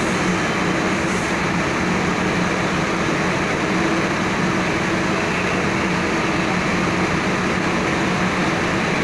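A truck's diesel engine running at low speed as the truck creeps into its parking place: a steady hum with a constant noise over it, inside a ferry's enclosed car deck.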